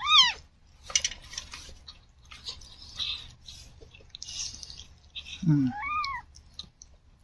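Newborn kitten mewing: a short, loud, high squeak right at the start and another thinner mew near the end, just after a brief low sound. In between come soft wet licking and rustling noises as the mother cat cleans the kitten.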